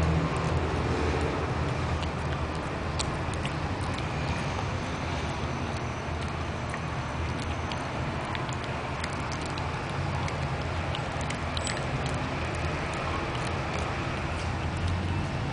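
A Shih Tzu chewing carrot: irregular crisp crunches over a steady low rumble.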